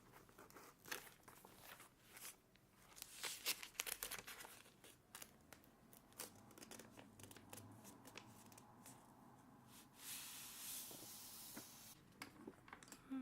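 Pen writing on notebook paper, close up: quick scratchy strokes and taps, bunched together a few seconds in, and one longer continuous scratch about ten seconds in.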